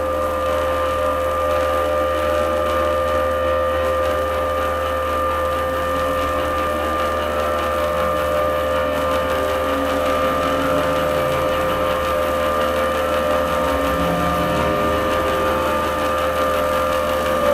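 Electronic drone score: a steady hum of sustained tones over a constant low rumble and noise, with faint shifting low tones entering in the second half.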